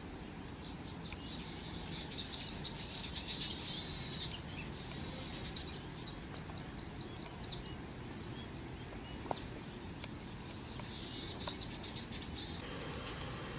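Insects chirping and buzzing, louder in spells near the start and near the end, with a quick high chirping throughout and a steady low rumble underneath.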